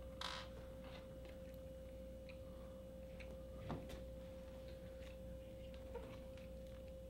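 Quiet room tone dominated by a faint steady whine at one pitch, with a few soft scattered clicks.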